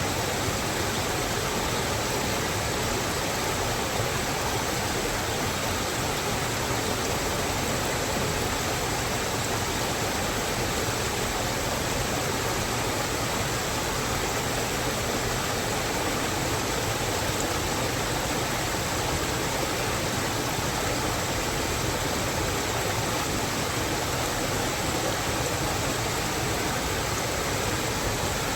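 Steady, unbroken rush of water, an even hiss with no single events standing out.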